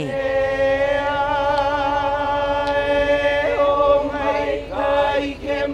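Traditional Hawaiian chant sung by a group of voices: one long note held steady for about three and a half seconds, then the pitch moves and the phrase breaks up near the end.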